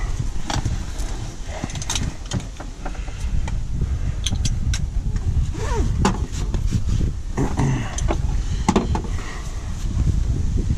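Nylon harness webbing handled and fed around a roll-cage bar: rustling and sliding straps with scattered small clicks and taps, over a steady low rumble.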